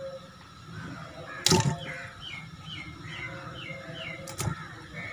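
A bird chirping a run of about six short, falling chirps, roughly two a second. A sharp knock comes about a second and a half in and another near the end, as pieces of fish are set into a steel cooking pot.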